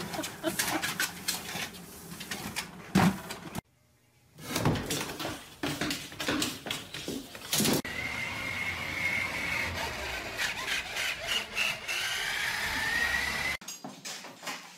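Scattered knocks and clatter, broken by a short gap a few seconds in. Then, from about eight seconds, a remote-control toy car's electric motor whines steadily as it carries a cat across a wooden floor. The whine rises in pitch and cuts off abruptly about a second before the end.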